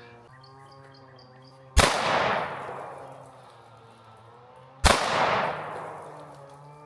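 Two 9mm shots from a SIG P365 X Macro pistol, about three seconds apart, fired as the first shots to sight in a newly mounted red dot. Each is a sharp crack followed by an echo that dies away over about a second and a half.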